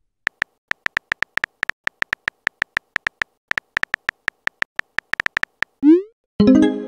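Phone keyboard typing sound effect from a texting-story animation: a rapid run of short tap clicks, several a second. Near the end, a short rising swoosh and then a ringing electronic message tone.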